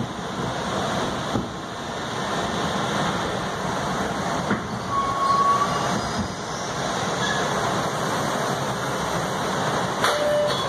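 Interior running noise of an MBTA Red Line 1900-series subway car pulling into its terminal station, a steady rumble and hiss of wheels on rail, with a brief high-pitched tone about halfway through and a click near the end.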